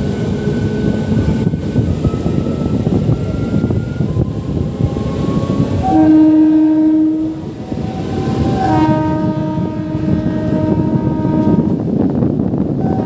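MEMU passenger train running on the rails with a steady rumble and a faint rising whine as it gathers speed. A train horn sounds about six seconds in, briefly, then again for a longer blast from about nine seconds.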